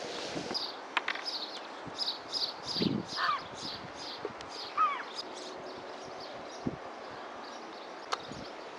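Birds calling: a quick run of short high chirps, about three a second, with two lower down-slurred calls among them, dying away after about six seconds. A sharp click about a second in and another near the end.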